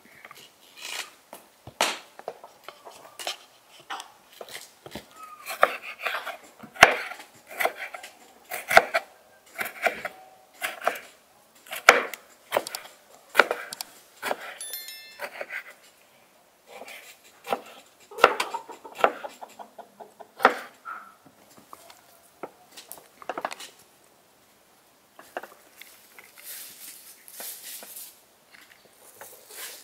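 Kitchen knife slicing tomatoes on a wooden cutting board: a long run of irregular knocks as the blade cuts through and strikes the board, broken by a few short pauses.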